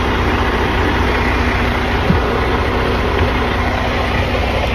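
Semi-truck diesel engine idling steadily close by: an even low rumble.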